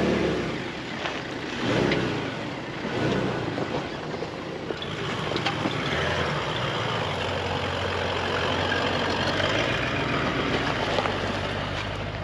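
Four-wheel-drive vehicle driving off-road: its engine runs as a steady low drone, with revs rising and falling in the first few seconds, then under a steady rushing noise.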